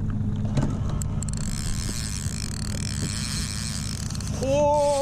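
Evinrude outboard motor running steadily at trolling speed, a low even hum. Near the end, a person's voice starts a long held note.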